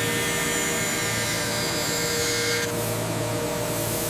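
CNC milling machine's carbide end mill cutting aluminum under coolant spray: a steady whine of several tones over a hiss. About two and a half seconds in, the higher whine drops away and the hiss shifts.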